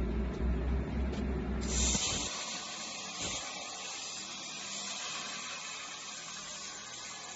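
A low mechanical rumble, then a CNC plasma cutting torch's arc strikes about a second and a half in and runs as a steady, loud hiss while cutting a metal tube.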